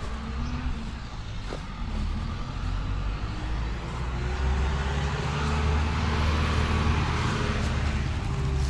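A road vehicle's engine running close by, getting louder from about two seconds in and staying loud, with a faint whine that slowly rises in pitch.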